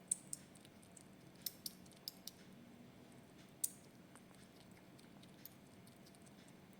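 Crisp crunching clicks of food being bitten and chewed: about eight sharp snaps scattered unevenly over several seconds, the loudest near the start and about three and a half seconds in.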